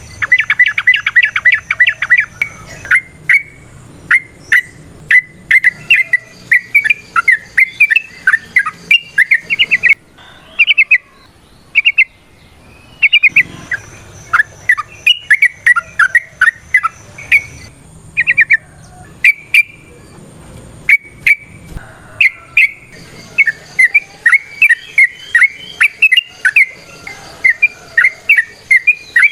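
Yellow-vented bulbul (trucukan) singing its fast, chattering song: long runs of loud, sharp notes in quick succession, broken by short pauses.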